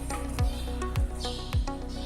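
Background music with a steady beat: a low drum thump about every half second under held melodic tones.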